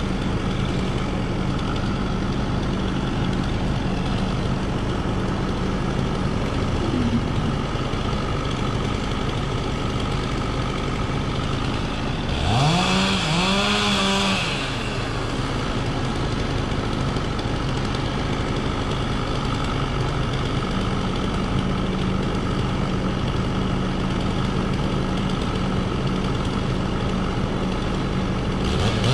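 An engine running steadily, with a short rise and fall in pitch, like a rev, about halfway through.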